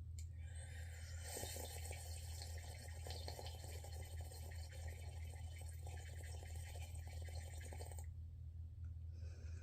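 A long, continuous slurp of hot coffee, air drawn noisily through the liquid, lasting about eight seconds and stopping near the end.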